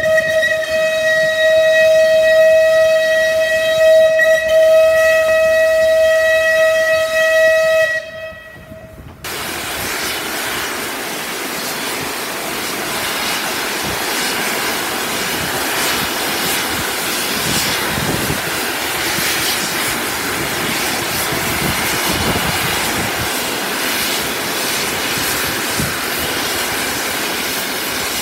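Steam whistle of Merchant Navy class 4-6-2 locomotive 35018 'British India Line' sounding one long steady note for about eight seconds. About a second after it stops, the engine's safety valves lift and blow off steam in a loud, steady hiss, the sign of a boiler at full pressure.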